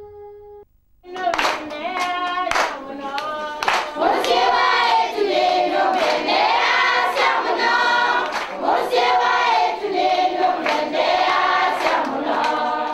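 A choir singing together, with sharp hand claps through the song. It starts about a second in, after a brief held tone, and cuts off abruptly at the end.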